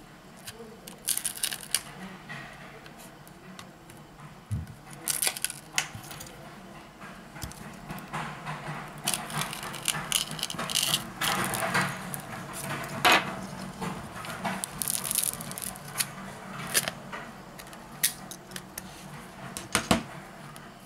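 Smartphone display module being pried off its frame with a metal pry tool while the phone is warm: irregular clicks and short scrapes of the tool and plastic parts, with a few sharper snaps.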